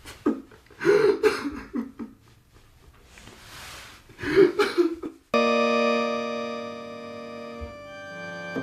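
A man's distressed vocal outbursts, with a long breathy exhale between them. About five seconds in, an electronic home organ cuts in with a sustained chord that slowly fades, its notes shifting near the end.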